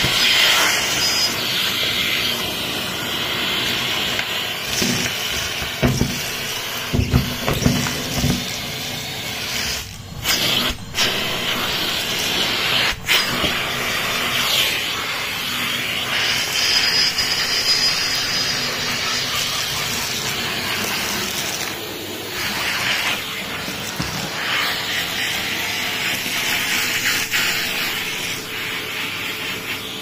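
Numatic Henry Xtra canister vacuum cleaner running, its hose nozzle sucking small debris off a carpet. There are knocks and rattles about six to eight seconds in as bits are drawn up the hose, and brief dips in the suction noise around ten and thirteen seconds in.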